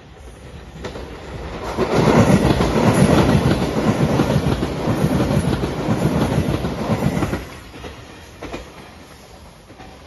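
JR Shikoku 8000 series Anpanman-liveried electric limited express train passing close by, its wheels clacking rapidly over the rail joints. The noise swells about two seconds in and drops away sharply about seven seconds in.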